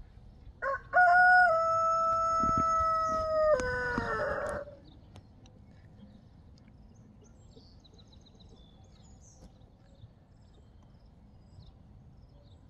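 A rooster crowing once: a short lead-in note, then a long held call of about three seconds that drops in pitch at the end.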